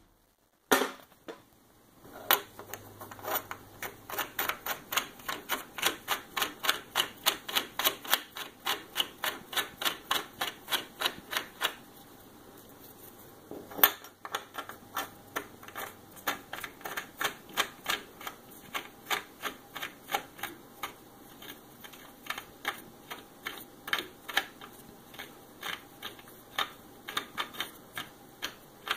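Rapid, regular clicking, about three or four clicks a second, in two long runs, as a bolt is worked into a T-nut set in a wooden beam. A single sharp knock about 14 seconds in splits the two runs.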